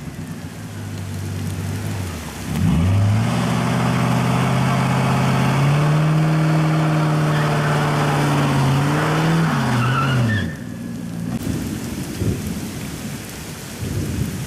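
A 2002 Chevrolet Camaro Z28's 5.7-litre LS1 V8 is revved hard in a burnout on wet concrete. The revs fall at first, then about two and a half seconds in they climb and hold high for about seven seconds over the hiss of the spinning rear tyre. The revs then drop away and cut off just past ten seconds, leaving the sound of rain.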